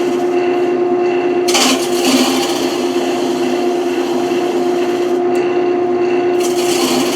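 Wood lathe running with a steady motor hum while a turning tool cuts into the spinning wood, the scraping cut louder about a second and a half in and again near the end.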